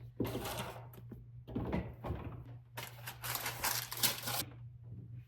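Items being handled while a refrigerator is cleared out: three bursts of rustling and clatter, the longest and loudest near the end, over a steady low hum.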